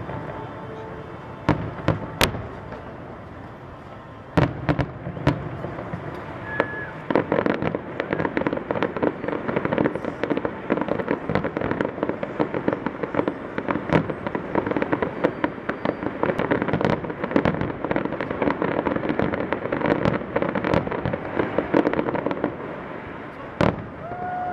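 Aerial fireworks display: sharp bangs from shell bursts, then a dense, continuous run of crackling bursts and booms from about four seconds in that lasts almost to the end.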